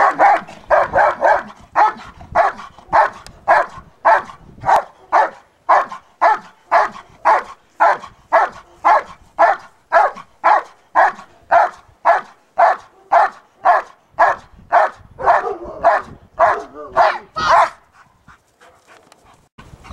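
German Shepherd barking steadily at a helper in a training blind, about two barks a second. This is the bark-and-hold of protection work, the dog guarding the helper without biting. The barking stops shortly before the end.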